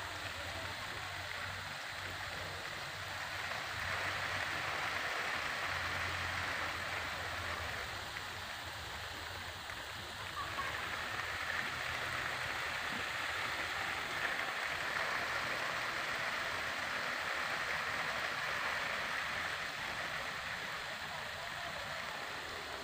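Water hissing out of a homemade hose-end sprinkler nozzle in a wide fan of jets and falling on the plants and soil of garden beds: a steady spray that gets louder a few seconds in and dips briefly near the middle.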